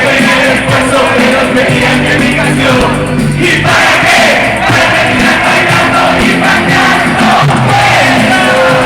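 Live rock band playing loudly in an arena, with a large crowd singing and shouting along.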